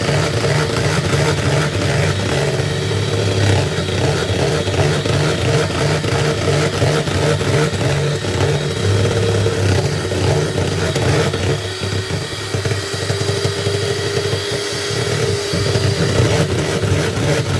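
Electric kitchen mixer motor running steadily while mayonnaise is being whipped, easing off for a few seconds past the middle before running on.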